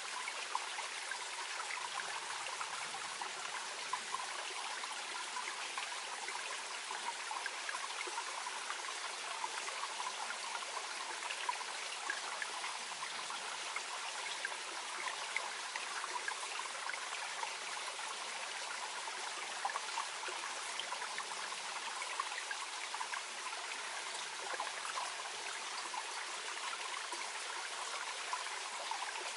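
A clear headwater brook babbling gently and steadily: a continuous wash of flowing water dotted with many small trickles and splashes.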